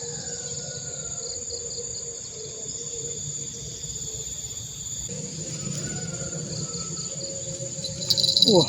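Insects chirring steadily in high, finely pulsing tones over a low rushing haze. Near the end comes a brief, louder jingling rattle with a short falling tone.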